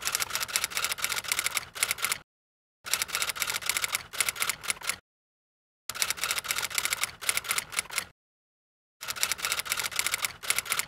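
Typewriter keys clacking in four quick runs of about two seconds each, separated by short silences, each run ending in a few slower strokes; a typing sound effect that accompanies text appearing line by line.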